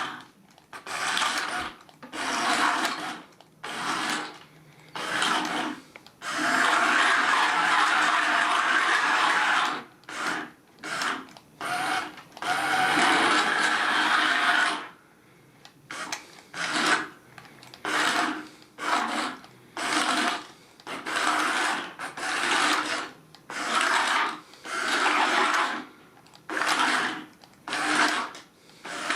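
Small electric motors and plastic gearing inside a radio-control Bumblebee robot toy whirring in short bursts as the remote's buttons are pressed, driving the weapon-fitted arms backwards and forward. Most bursts last under a second, with two longer runs of about three seconds near the middle.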